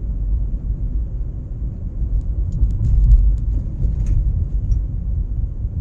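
Low, steady road and tyre rumble inside the cabin of a 2011 Toyota Prius coasting in neutral, with a few faint light ticks in the middle.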